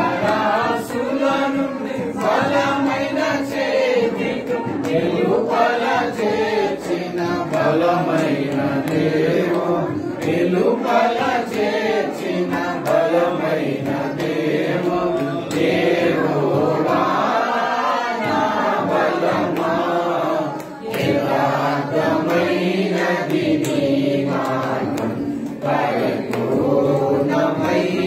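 Several voices singing a devotional song together, in steady continuous song.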